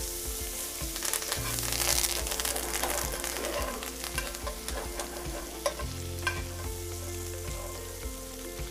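Butter sizzling around steaks in a cast iron skillet, loudest in the first few seconds. A metal spoon now and then clicks against the pan as it moves the herbs and garlic through the butter.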